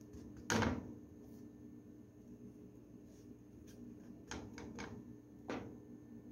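A metal spoon knocking and tapping against a non-stick frying pan while tapioca starch is spread in it: one sharp knock about half a second in, a quick run of light taps around four and a half seconds, and another knock near the end, over a low steady hum.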